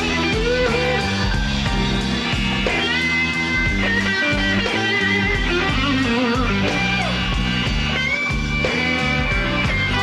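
Band music led by an electric guitar playing held and bent lead notes over bass and drums.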